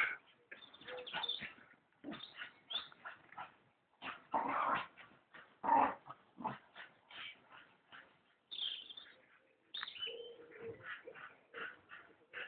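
Two dogs, a pit bull–mastiff cross and a Staffordshire bull terrier, fighting: irregular short bursts of dog noise with brief gaps between them, louder about four and six seconds in.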